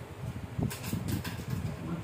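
Low, uneven rumble of wind buffeting the phone's microphone, with a quick run of four short scratchy, hissy noises about a second in.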